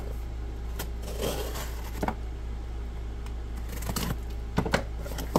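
Cardboard shipping box being torn open by hand: scattered scrapes, rustles and a few sharp cracks of cardboard and tape, over a steady low hum.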